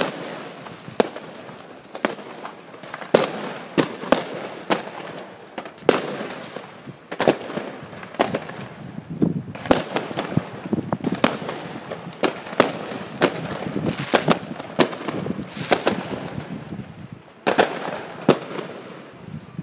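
Fireworks and firecrackers going off: sharp bangs at irregular intervals, roughly one or two a second, over a continuous background of more distant bangs and crackle.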